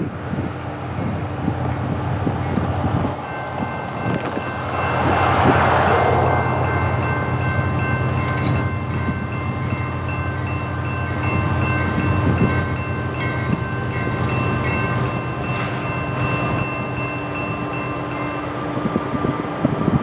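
Diesel locomotives, a CSX ES40DC and SD40-3, running with a steady low engine rumble. About three seconds in, the crossing's NEG electronic bell starts ringing in a fast, even, high-pitched ding as the signals activate, and it stops near the end. A brief loud rush of noise comes around five seconds in.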